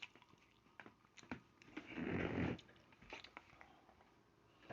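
A person breathing out audibly close to the microphone about two seconds in, amid a few faint clicks.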